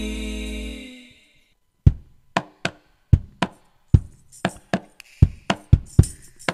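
A held intro chord fades out in the first second. After a short silence a hadrah percussion ensemble starts: single drum strikes that come closer and closer together, with the jingles of frame drums and tambourine joining about halfway.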